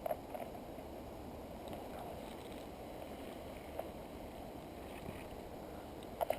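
Steady low rustling and rubbing of a body-worn GoPro in its housing as the player moves, with a quick cluster of sharp clicks near the end.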